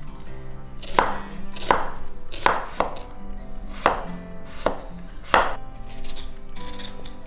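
Kitchen knife slicing a carrot on an end-grain wooden cutting board: about seven sharp chops, roughly one every 0.7 seconds. Near the end there is a softer scraping as the knife peels an onion.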